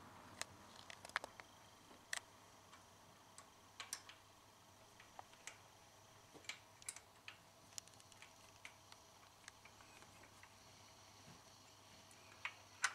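Faint, irregular small clicks and taps of metal tools and parts being handled and fitted at the timing chain tensioner on an open engine cylinder head.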